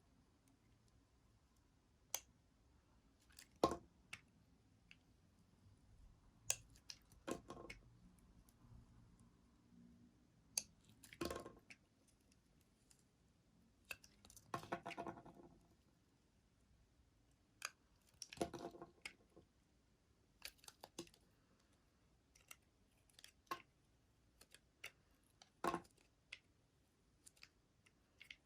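Bar soap being cut: a series of crisp crunches and clicks at irregular intervals, a few drawn out into a longer crackling cut lasting about a second.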